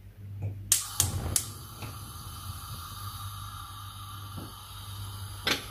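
Steady hiss of a pan of water and oil heating on a gas hob, with a few light knocks of cookware in the first second or so and one more near the end.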